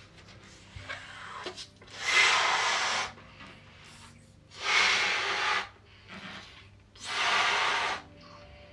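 Breathy rushes of air as a person blows up a latex balloon by mouth: three loud breaths of about a second each, spaced roughly two and a half seconds apart.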